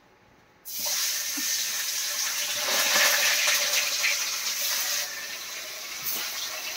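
Turmeric-coated fish pieces sizzling in hot oil in an aluminium karai. The sizzle starts suddenly under a second in as the fish goes into the oil, and eases a little after about five seconds.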